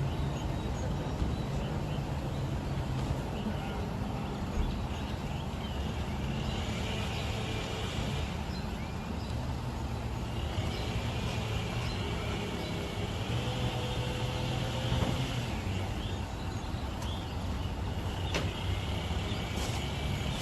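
Motor vehicle running with a steady low rumble. A fainter, higher wavering sound comes and goes three times over it.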